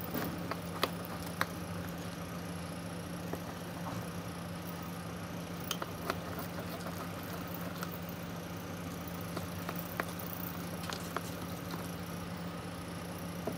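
Hands kneading a sticky homemade slime dough of maida flour and oil in a small glass jar, giving soft handling noises and a few scattered sharp clicks. A steady low hum runs underneath.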